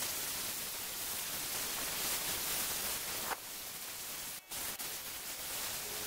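Compressed-air gravity-feed spray gun spraying a heavily thinned paint top coat: a steady hiss of air and atomised paint, cutting out briefly once about two-thirds of the way through.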